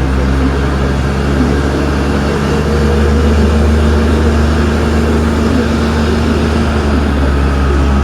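Parking-lot tram under way: its engine and drive run with a steady low drone and a few steady hum tones.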